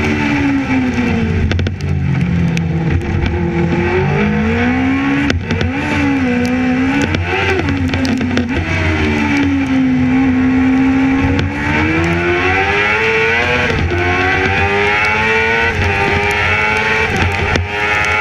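Racing sidecar's engine heard from an onboard camera, its pitch rising and falling repeatedly as the outfit accelerates and slows through corners, with short drops in pitch. A hiss of wind and tyre spray from the wet track runs under the engine.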